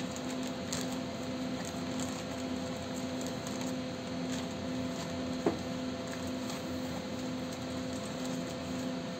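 Plastic packaging and bubble wrap handled and rustled, with faint scattered crinkles and one sharp click about halfway through, over a steady electrical hum.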